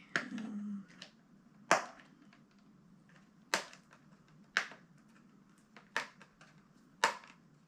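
Sharp plastic clicks and snaps, six of them a second or two apart, from a cosmetics jar of body butter being forced open with difficulty.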